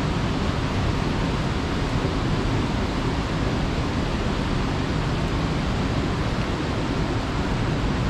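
Steady rushing of fast-flowing mountain stream water, an even, unbroken noise.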